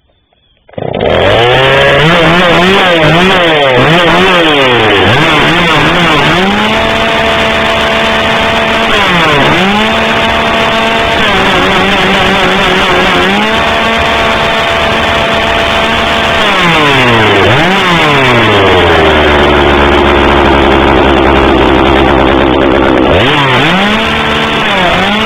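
1991 Poulan 2900 Farmhand's 46 cc two-stroke chainsaw engine running after a brief silence, its throttle blipped and held high several times, dropping to a lower steady idle for a few seconds and revved again near the end.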